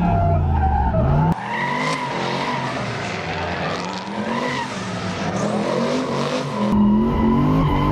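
Twin-turbo LS V8 of a Nissan 350Z drift car revving up and down, heard from inside the cabin. A little over a second in, the sound switches to outside the car, where the tyres squeal and screech as it slides sideways. It returns to the cabin engine sound near the end.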